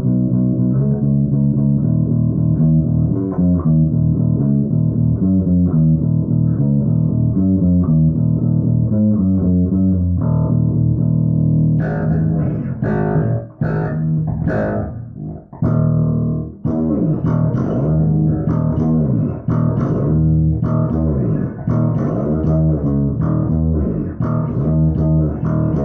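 BC Rich Warlock signature electric string instrument played through an amp, with quick picked notes in a low, dark tone. About halfway through the tone turns suddenly brighter and sharper, with a harder attack on each note.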